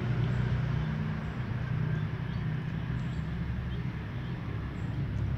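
A steady low rumble in the background, with faint soft clicks of two cats eating from a plate.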